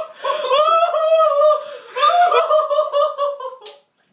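A person crying loudly in long, wavering, high-pitched wails, two of them, dying away near the end.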